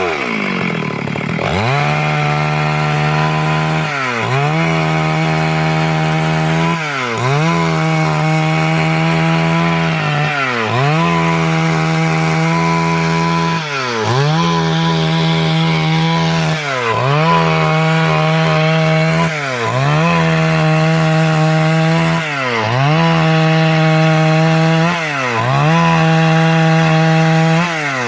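Stihl MS 382 two-stroke chainsaw revving up to full speed about a second and a half in and sawing through wood to cut boards. Its engine pitch dips briefly and recovers every few seconds.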